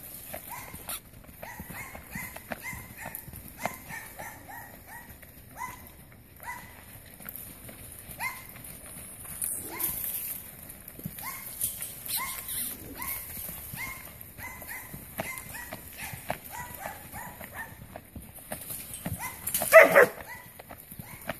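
A dog barking and yipping repeatedly in short rising calls, with one loud bark near the end, over the hoofbeats of a saddled quarter horse trotting on dirt.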